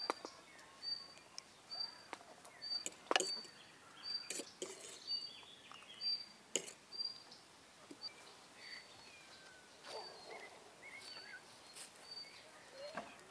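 Quiet outdoor rural ambience: a short high chirp repeats about every three quarters of a second, with a few sharp clicks or knocks and faint sweeping calls between them.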